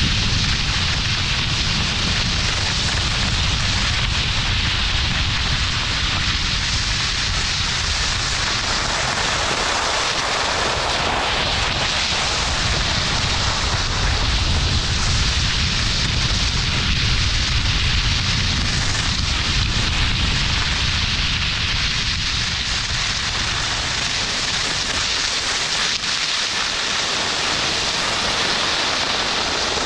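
Wind buffeting the microphone in a steady low rumble, over a constant hiss of skis sliding on snow.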